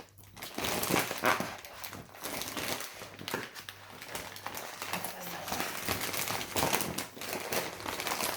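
Plastic packaging crinkling and rustling in uneven bursts as a sealed toy blind bag is pulled and worked open by hand.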